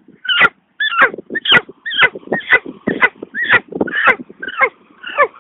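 A man's mouth imitation of an animal's repeated cries: short, high calls, each falling in pitch, about two a second.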